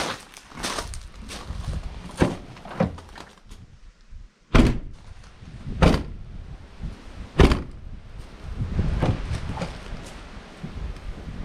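Car body panels being shut and handled: a string of knocks and thuds with three louder slams about four and a half, six and seven and a half seconds in, over a low rumble.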